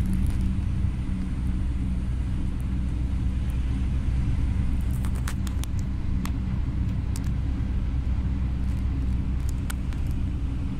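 Steady low rumble of engine and tyre noise heard from inside a car cruising along a motorway.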